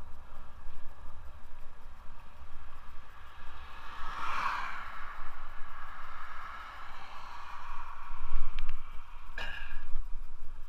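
Wind rumbling on a helmet-mounted camera microphone while cycling along a road, with a vehicle passing about four seconds in, swelling and fading. A brief sharp swish near the end.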